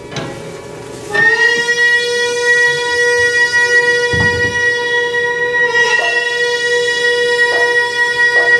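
Instrumental music in the style of Tang-dynasty court banquet music (yanyue). About a second in, a wind instrument enters and holds one long, steady note, over plucked strings, with a low thud about four seconds in.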